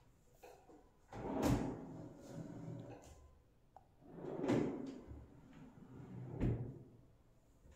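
Doors and a drawer of a built-in dressing cupboard being worked by hand: a door swinging shut about a second and a half in, then the drawer sliding open and being pushed shut with a knock near the end.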